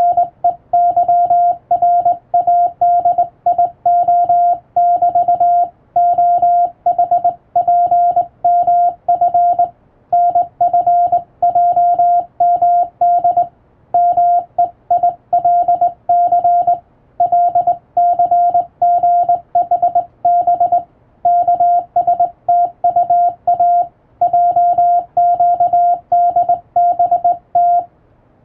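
Morse code sent by hand on a telegraph key: a single steady beep tone keyed on and off in dots and dashes, in groups of letters separated by brief pauses.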